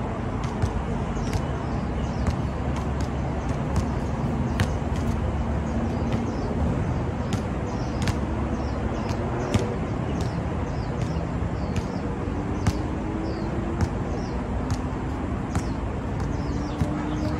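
Steady traffic rumble from passing road vehicles, with engine notes rising slowly in pitch now and then. Over it come irregular sharp knocks, a basketball bouncing on the hard court surface.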